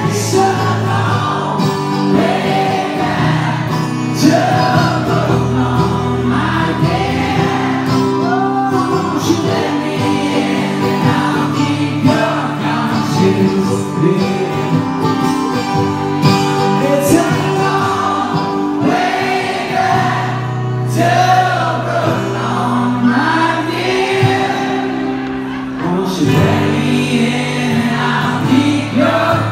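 Live acoustic band performance: strummed acoustic guitars with singing voices over a steady bass line.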